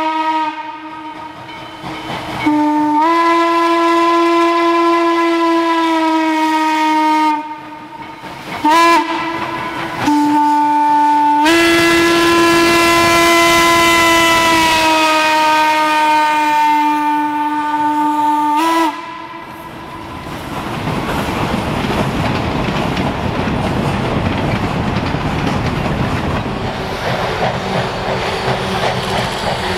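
Western Maryland No. 1309's steam whistle blowing a long, a short and a very long blast, after the end of an earlier long one: the long-long-short-long grade-crossing signal. After that the 2-6-6-2 Mallet locomotive and its train pass close by, with exhaust and wheels clacking on the rails.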